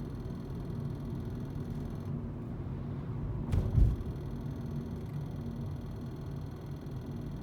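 Steady low hum and rumble of the 10th-generation Honda Civic heard from inside the car, with a single sharp low thump about halfway through.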